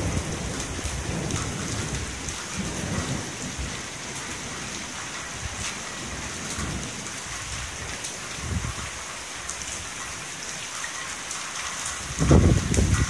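Heavy rain pouring steadily in a thunderstorm, with thunder rumbling; a loud burst of thunder comes near the end.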